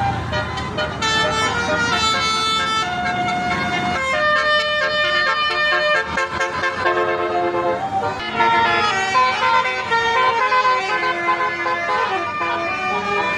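Indonesian "telolet" musical bus horns playing tunes in stepped notes. Several horn tunes overlap from about four seconds in.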